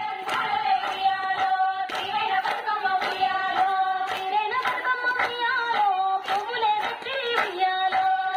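A group of women singing a Telugu Bathukamma folk song while clapping their hands in rhythm, the claps coming steadily about twice a second.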